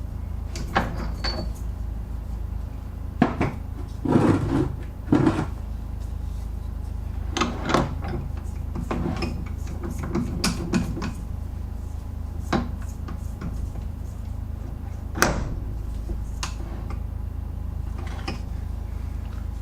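Scattered knocks, clunks and clicks of metal tooling being handled and fitted at a metal lathe, over a steady low hum.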